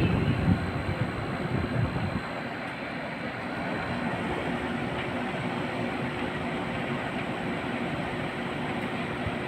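Vintage National air conditioner running with a steady mechanical hum and whir. A louder low rumble in the first couple of seconds settles into the even running noise.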